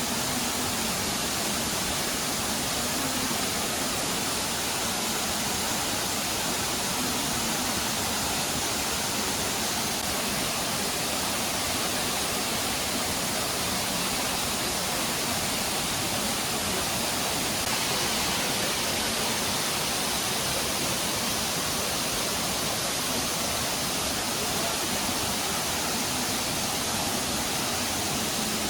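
Waterfall in full monsoon flow: a steady, unbroken rush of falling water.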